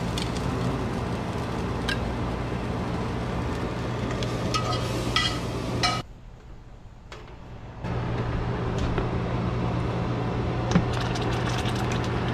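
Snapper frying in butter in a pan, sizzling steadily over a low hum, with a few light clinks of a utensil. The sound cuts out for about two seconds just after halfway, then resumes.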